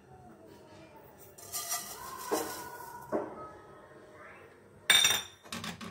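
Cumin seeds poured from a steel bowl into a dry frying pan, a light pattering hiss with a couple of small knocks from about one and a half to three seconds in. About five seconds in comes a single sharp clink, the loudest sound.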